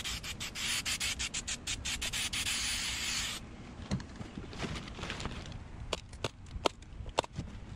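Aerosol can of spray adhesive hissing unevenly, stopping abruptly about three and a half seconds in. After that come scattered light clicks and rustles as the seat cover fabric is pulled down.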